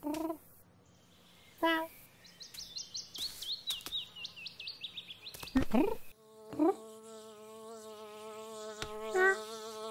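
Short squeaky calls, then a quick run of high chirps slowly falling in pitch, and a rising swoosh about six seconds in. After that comes a steady buzzing of a fly with a slightly wavering pitch, the loudest lasting sound.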